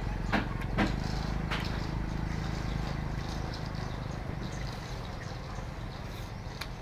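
A low, steady engine-like rumble that slowly fades, with a few sharp clicks in the first second and a half.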